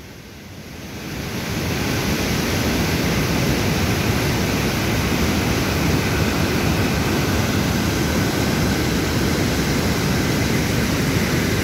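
Mountain stream rushing over boulders: a steady white-water rush that fades in over the first second or two and then holds level.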